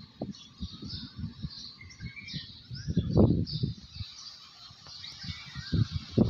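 Birds chirping and calling steadily, with gusts of wind buffeting the microphone, the strongest about three seconds in.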